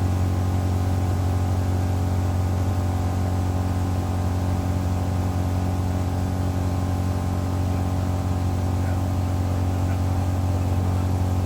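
Tour boat's engine running steadily at cruising speed, a constant low drone heard from on board.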